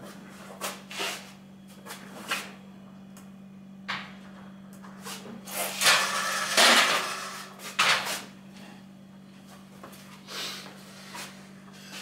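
Bumps, knocks and scraping as a tall fridge-freezer cabinet is handled and turned round on its metal stand, with the longest and loudest scrape about six seconds in, over a faint steady hum.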